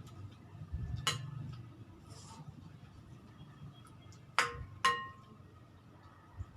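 Eating utensils clinking against plates or bowls during a meal: one ringing clink about a second in, then two louder ringing clinks about half a second apart past the middle.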